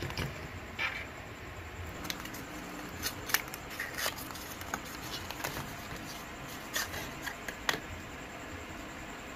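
Small paperboard boxes handled and opened by hand: scattered crinkles, scrapes and light taps of card, most of them in the middle of the stretch, over a steady hiss.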